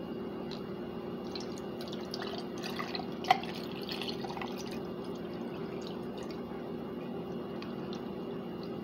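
A drink poured from a glass carafe into a wine glass full of ice cubes, with scattered ticks of ice and one sharp clink about three seconds in, over a steady low hum.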